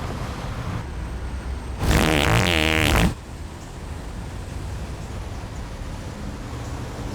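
A loud wet fart, lasting just over a second, its pitch wavering up and down, over steady background noise.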